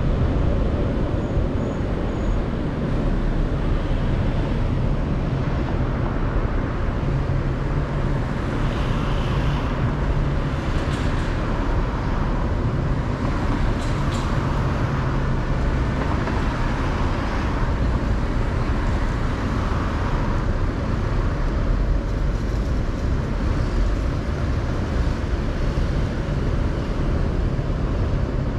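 Downtown street traffic: a steady low rumble of car engines as vehicles cross an intersection.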